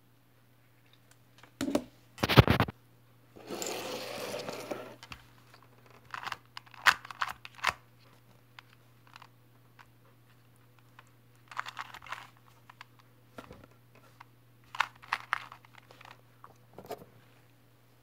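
Plastic speed cubes being handled: a couple of loud knocks about two seconds in, a rustling scrape for about a second and a half, then clusters of clicks as the layers of a 2x2 speed cube are turned.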